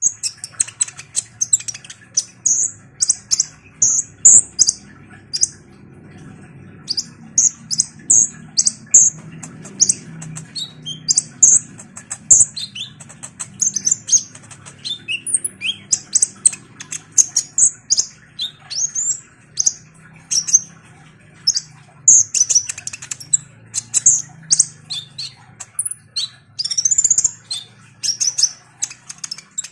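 A caged male kolibri ninja (Van Hasselt's sunbird) singing in full, energetic song: a fast, unbroken stream of short, very high-pitched chirps and trills.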